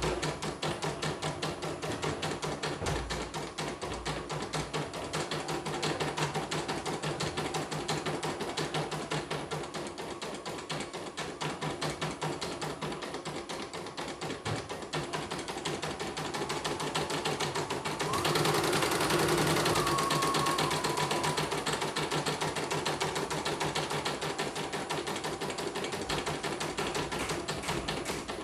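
Computerized embroidery machine stitching a design: a fast, even clatter of needle strokes. About two-thirds of the way through, a louder whir with a higher whine lasts about three seconds before the stitching goes on.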